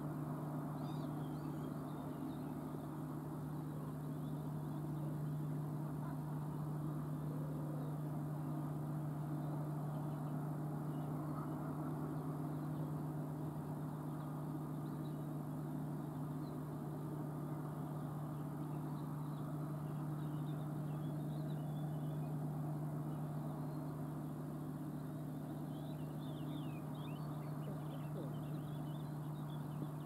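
A steady low hum runs throughout, with faint, short, high bird chirps and twitters now and then, more of them near the end.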